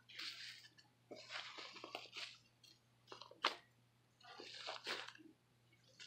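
Fluffy shaving-foam slime squeezed and worked by hand: faint crackling squishes in short spells, with a sharper click about three and a half seconds in.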